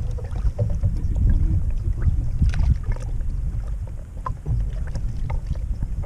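Strong wind buffeting the microphone, a loud, fluctuating low rumble, with a few light knocks and clicks scattered through it.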